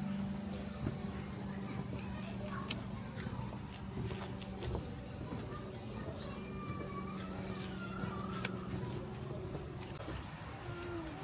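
Steady high-pitched insect chorus buzzing without a break, dropping away abruptly near the end, over a low steady hum.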